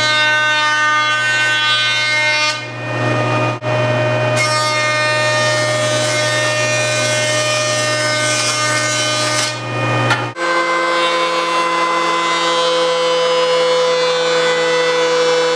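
Powermatic jointer running as a pine 2x4 is pushed across its cutterhead: a steady hum with the hiss of the knives cutting, dipping briefly between passes about 3 and 10 seconds in. About ten seconds in the sound switches abruptly to a DeWalt thickness planer running as the board feeds through, a steady, higher-pitched hum.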